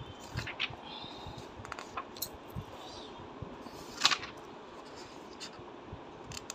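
Pages of a paper textbook being turned and handled: soft rustles and light clicks, with one louder page rustle about four seconds in.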